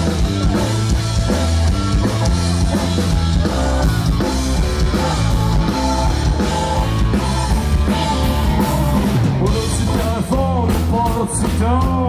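Live punk rock band playing loud and steady, with drum kit, bass and electric guitars.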